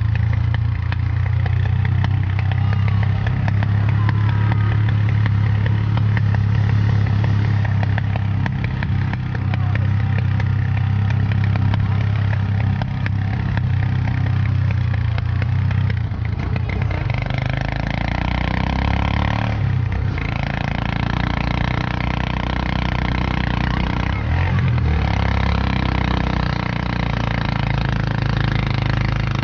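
Motorcycle engine of a tricycle (motorcycle with sidecar) running steadily under way, heard from inside the sidecar as a loud low drone with road and wind noise. The engine note shifts about halfway through.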